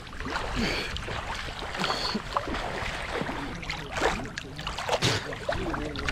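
Pond water splashing and sloshing as people swim, with irregular splashes.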